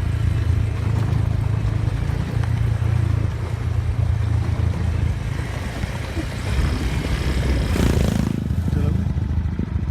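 A vehicle engine running steadily, a low hum with noisy rumble over it, and a short loud rush of noise about eight seconds in.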